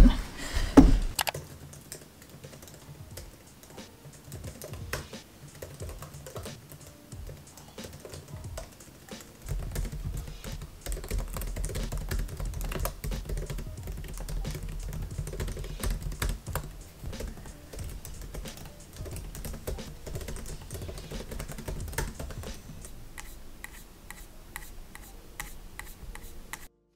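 Typing on a MacBook laptop keyboard: a quick, irregular run of soft key clicks. A low rumble comes in underneath about ten seconds in.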